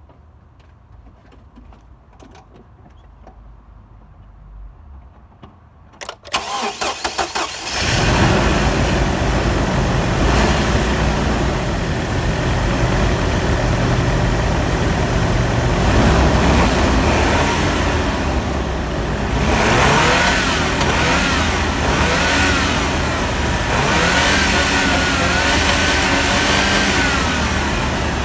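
A GMC 2.8-litre inline-four engine is cranked by its starter for a second or two and catches about eight seconds in, after a few faint clicks. It then runs steadily, firing on all cylinders, with some rises and falls in pitch in the latter half.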